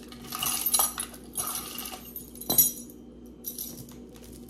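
Jewelry pieces (necklaces, chains and pendants) clinking and jingling as they are handled and set down, with one sharper clink about two and a half seconds in.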